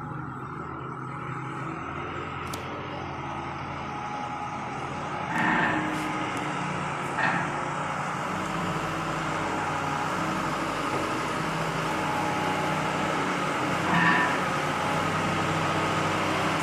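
International medium-duty truck's diesel engine running at low speed as the truck creeps closer, growing steadily louder. Three short squeaks cut in over it.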